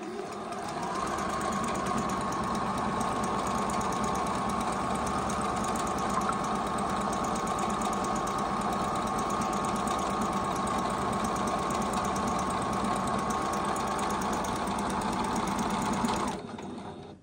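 Juki HZL-009 computerized sewing machine running steadily on its own, sewing a decorative chain stitch. It picks up speed over the first second and stops near the end.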